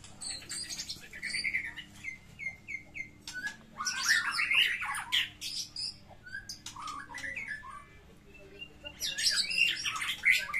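White-rumped shamas (murai batu) singing against each other in a duel: bursts of rapid, varied whistles and chips. About a second and a half in comes a run of about five repeated notes, and the loudest bursts of song come about four seconds in and again near the end.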